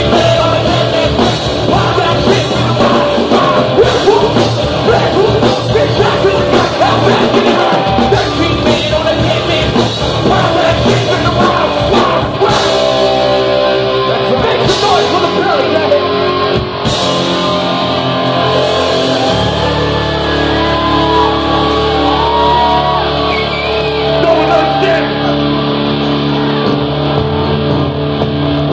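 Live heavy rock band playing loud, with electric guitar, bass and drums and a singer singing and yelling over them. About two-thirds through, the busy drumming thins out into long held chords under the vocal.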